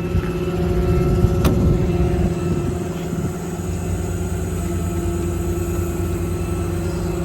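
6.7 Cummins diesel of a Ram 5500 running with its hydraulic air compressor engaged, a steady mechanical hum, with a sharp click about a second and a half in.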